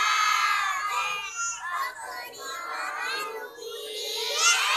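A chorus of young children singing in unison without accompaniment, their high voices holding long, sliding notes of an Assamese song, swelling louder near the end.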